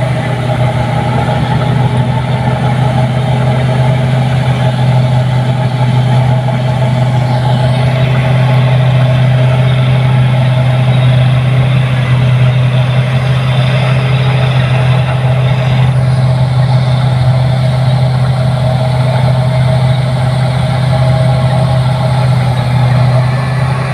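New Holland 8060 rice combine harvester running steadily, a constant deep engine drone with machinery noise over it.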